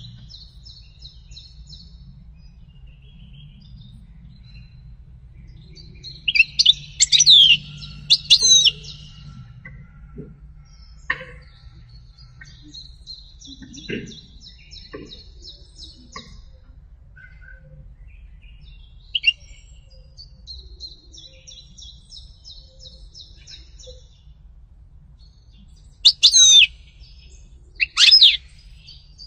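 European goldfinch singing: runs of rapid twittering trills, broken by loud, sharp notes that sweep down in pitch, a cluster about a quarter of the way in and a pair near the end.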